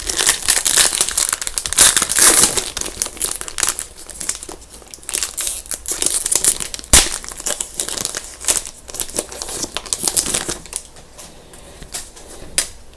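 The wrapper of a 2011-12 Upper Deck SPx hockey card pack being torn open and crinkled by hand, with the cards shuffled out. The crinkling is densest over the first few seconds, then comes and goes, with a single sharp click about seven seconds in.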